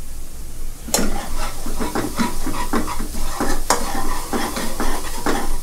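Minced garlic sizzling in oil in a nonstick wok over medium heat. From about a second in, a metal spatula stirs and scrapes the pan in many quick strokes.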